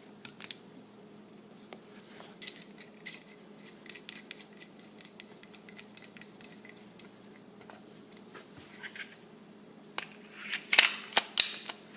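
Small metal clicks and clinks of Glock 19 pistol parts being handled and fitted back together, with a few louder, sharper clicks about ten seconds in.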